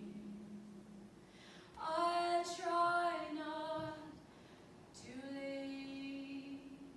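Female voice singing soft, long-held wordless notes in two phrases with a short pause between.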